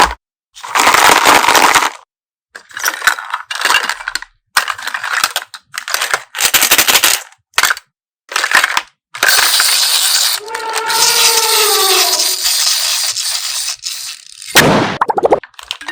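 Slime being squeezed and pressed, crackling in a run of separate bursts that start and stop abruptly. A short falling tone comes about ten seconds in.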